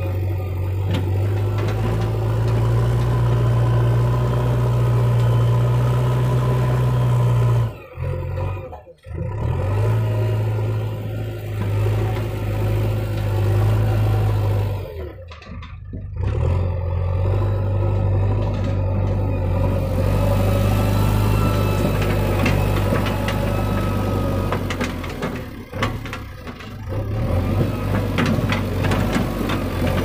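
JCB 3DX Eco backhoe loader's diesel engine running steadily as the machine works, with a strong low hum. The sound cuts out briefly about a quarter and halfway through, and the engine's pitch shifts after each gap.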